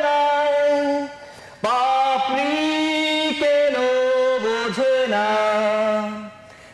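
A man singing a Bengali song unaccompanied, with no instruments, drawing out long held notes. There is a short breath pause about a second in, and the voice fades out near the end.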